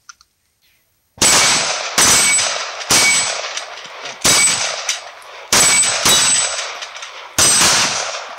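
Two 9mm 1911 pistols firing at a steel dueling tree: about six sharp shots at uneven spacing, starting about a second in, each followed by the ring of a struck steel plate.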